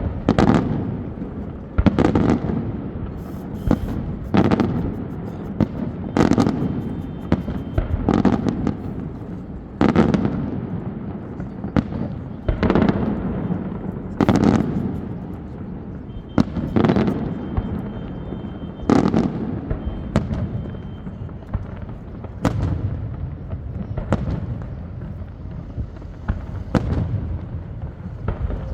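Fireworks display: aerial shells bursting in a steady string of bangs, about one every one and a half to two seconds, each trailing off in an echo.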